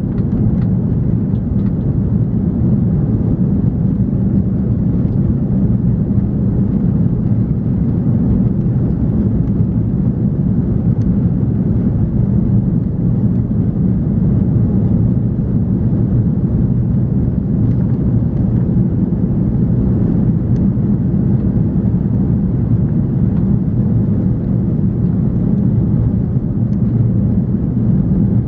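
Steady cabin noise inside an Airbus A340-300: the rumble of its four CFM56 engines and the airflow, holding an even level throughout.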